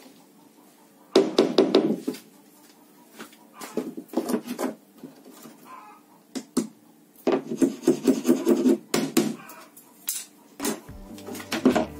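Pencil and metal ruler scraping and rubbing on a plywood sheet while lines are marked out: three bursts of quick strokes, about six a second, with a few sharp knocks between them. Music comes in near the end.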